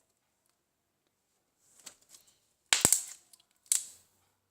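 Handling noise: a few faint small clicks, then a quick cluster of sharp knocks and clacks of hard objects being moved or set down about three seconds in, and one more sharp knock about a second later.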